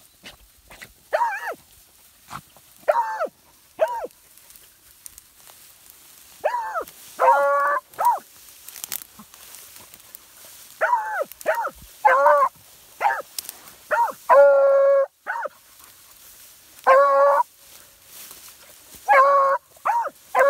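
Hounds baying on a scent trail: irregular barks and longer drawn-out bays, some lasting close to a second, spaced unevenly over a steady low background.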